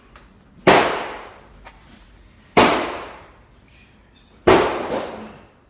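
A run of loud, sharp bangs, three evenly spaced about two seconds apart, each ringing out for about a second afterwards.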